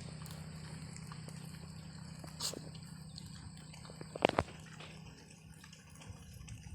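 Pigs moving and snuffling in their pen: a short noisy snort about two and a half seconds in and a couple of sharp clicks or knocks about four seconds in, over a steady low hum.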